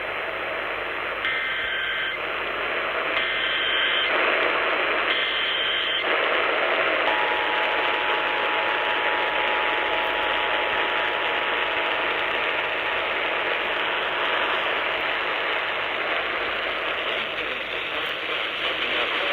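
Emergency Alert System test over AM radio. About a second in come three short bursts of SAME header data, each about a second long and a second apart, a warbling digital screech. Then the EAS two-tone attention signal (853 and 960 Hz) is held steady for about nine seconds, all over a constant AM static hiss.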